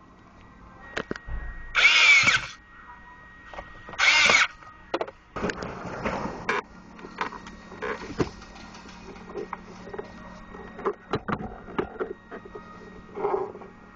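Cordless screwdriver running in two short whirring bursts about two and four seconds in, driving screws back in. Scattered clicks and knocks of plastic trim being handled follow.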